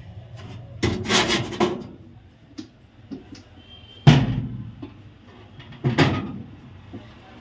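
Steel beeruva's door handle and lock mechanism being worked by hand: a rattling clatter about a second in, then two sharp metal clacks about four and six seconds in.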